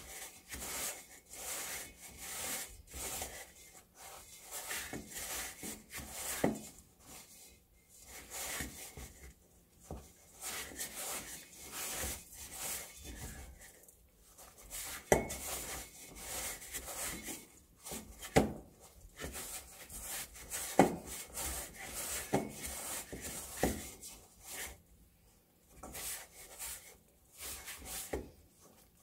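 Bread dough being kneaded by hand in a stainless steel mixing bowl: irregular rubbing and scraping strokes of hands and dough against the metal, with a few sharper knocks as the dough is pressed and turned.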